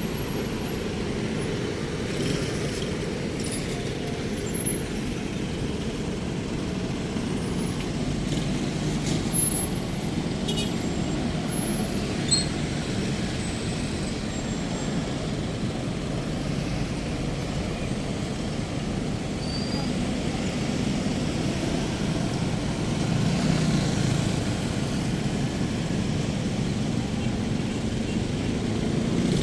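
Steady city street traffic noise, vehicles passing, with a few faint clicks and brief high chirps.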